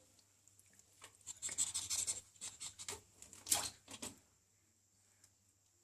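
Scattered scratching and rubbing sounds from a wet ferret moving about after its bath, loudest about three and a half seconds in and stopping a little after four seconds.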